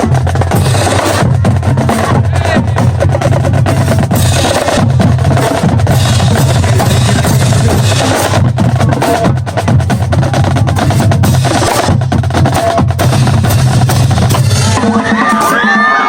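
High school marching drumline playing a cadence: rapid snare drum strokes and rolls over a pounding bass drum line. The drumming stops near the end and crowd voices and shouts rise.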